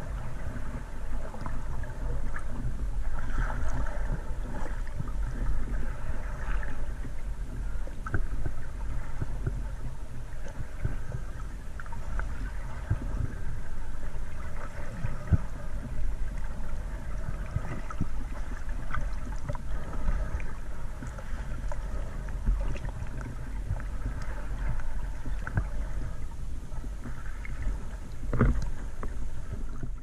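Underwater ambience: a steady low hum with scattered clicks and crackles through the water.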